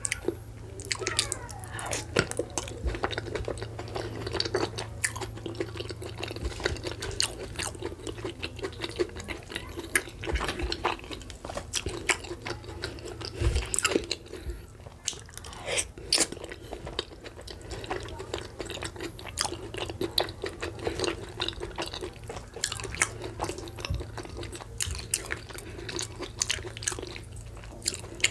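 Close-miked eating by hand: wet chewing and mouth clicks from soft boiled cocoyam in pepper dip, with fingers squishing and scooping the food in an earthenware bowl. The small clicks and crackles come thick and irregular.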